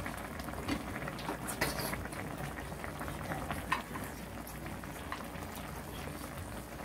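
Spicy soft-tofu ramen broth bubbling steadily at a boil in a wide pan on a tabletop burner, with utensils clinking lightly a few times.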